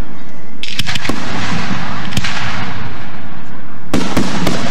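Aerial firework shells bursting overhead: a run of loud bangs, each trailing off, with three coming close together near the end.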